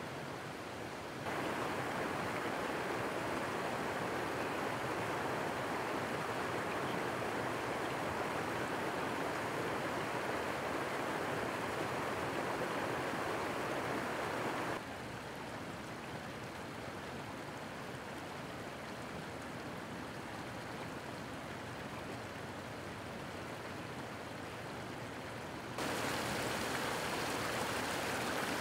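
Water from a broken water main surging up through the street surface and flooding across the pavement: a steady rushing noise. It gets abruptly louder about a second in, softer again about halfway, and louder once more near the end.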